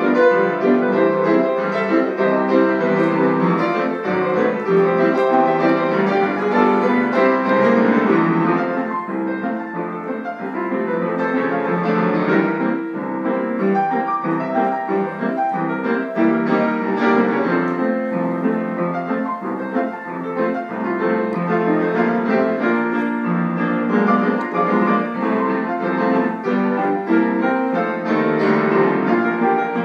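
Two grand pianos playing a ragtime duet together, a steady stream of notes from both instruments.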